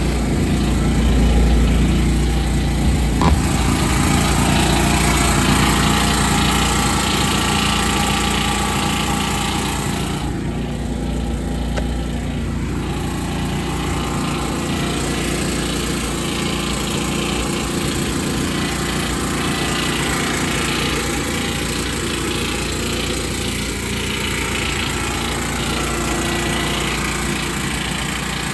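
Predator 6500 generator's single-cylinder engine running steadily at an even pitch, enclosed in a shed lined with sound deadening, which makes it a lot quieter.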